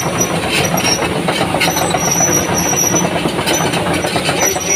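Komatsu PC200-8 excavator's six-cylinder diesel running, with the clanking and rattling of its steel crawler tracks as it travels, and a high squeal coming and going.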